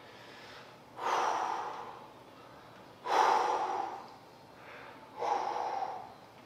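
A man's heavy breaths with the effort of dumbbell lateral raise reps: three noisy breaths about two seconds apart, each starting sharply and fading over about a second.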